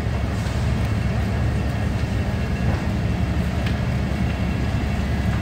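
Steady low rumble of fire apparatus engines running at a multi-alarm structure fire, with a few faint sharp pops.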